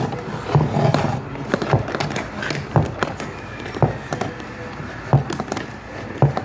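Plastic electric-fan parts being handled during cleaning, giving irregular sharp clicks and knocks, about eight in all.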